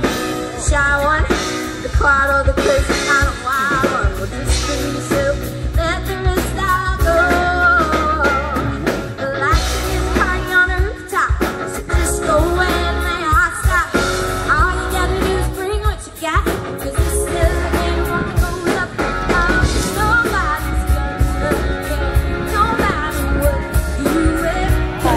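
Live pop-rock band: a woman singing lead into a microphone over electric guitar and a drum kit.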